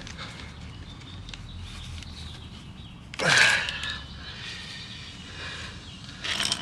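A person's loud breath with a falling pitch about three seconds in, then a short sharp click near the end, over a low steady hum.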